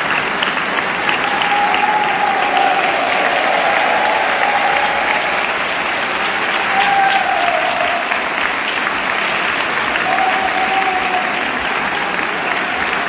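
Audience applauding steadily at the end of a concert performance.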